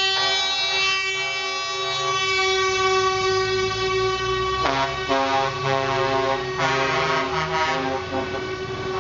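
Truck air horns sounding in long, overlapping blasts from a passing convoy of lorries, over the low running of their diesel engines. Several horns sound at once, and new blasts start about halfway through and again about two-thirds of the way in.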